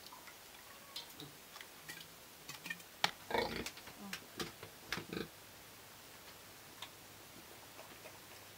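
Domestic pig eating rice mash from a hand, with scattered clicking chews and a louder burst a little after three seconds.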